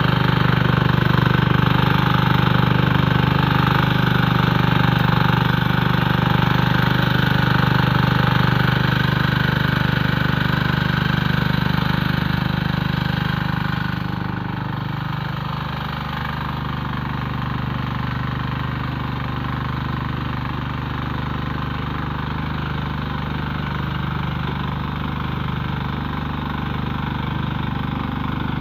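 Engine of a walk-behind power tiller running steadily under load as its rotary tines churn the soil. About halfway through, the sound drops a little in loudness and pitch.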